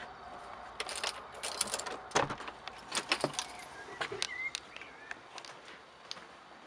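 Door handle and latch of a wooden glazed door clicking and knocking as the door is opened: a run of sharp clicks and knocks over a few seconds, loudest about two seconds in.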